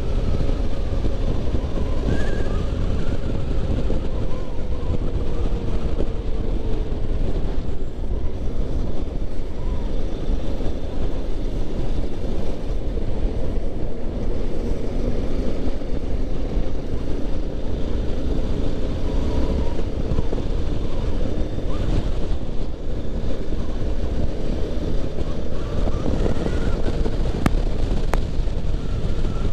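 Yamaha Ténéré 250 motorcycle's single-cylinder engine running while riding on the road, mixed with heavy wind buffeting on the camera microphone. The engine note falls and rises in pitch as the bike slows and speeds up.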